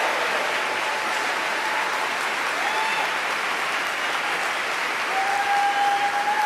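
A large audience applauding steadily, with a few whistles over the clapping, one held for over a second near the end.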